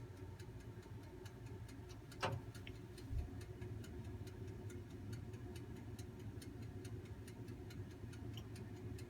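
Handling of a disassembled fuel distributor: a single light click about two seconds in and a dull knock about a second later. Steady, even ticking, about three ticks a second, and a low hum run underneath.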